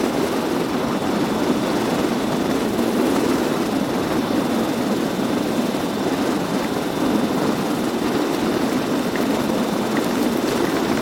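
Steady rush of wind and road noise from a motorcycle being ridden, with no change in pace.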